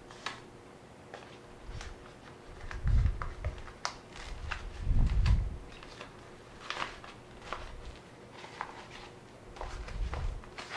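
Handling noise from a Neewer fabric softbox being worked onto a small LED light: scattered rustles and light clicks, with two dull thumps about three and five seconds in.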